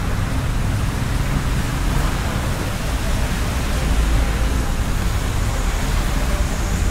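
Steady hiss of heavy rain with a low rumble of motorcycles and traffic running nearby.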